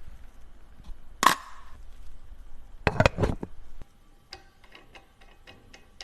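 Small sharp clicks and taps of watch-repair work, metal tools and parts knocking together. There is one loud knock about a second in and a cluster of louder clicks around three seconds in. After that comes a run of light, quick ticks.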